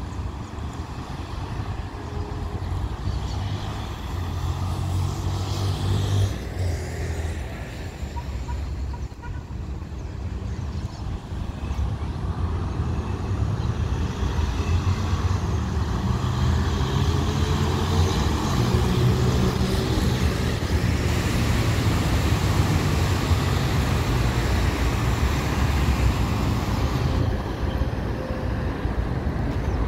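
Road traffic: cars and trucks passing, a steady rumble of engines and tyres that grows louder about halfway through.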